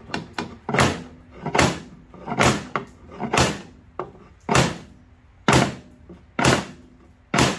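Claw hammer striking a steel trampoline spring-puller hook lodged in a drawer-lock keyhole: about eight sharp metal-on-metal blows roughly a second apart, with two lighter taps first, knocking through the wooden drawer. He is driving down a press-fit antique drawer lock that is held tight and not yet moving.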